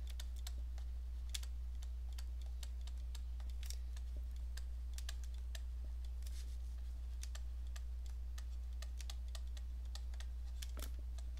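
Stylus tapping and clicking on a tablet's writing surface during handwriting: irregular light clicks, a few close together, over a steady low hum.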